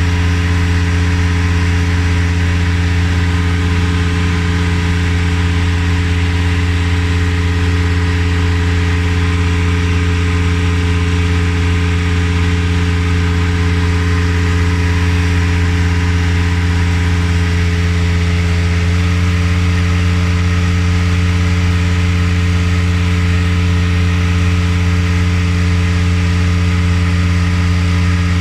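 A motor or engine running steadily with a constant low hum and overtones, holding the same speed throughout; one overtone shifts slightly about two-thirds of the way through.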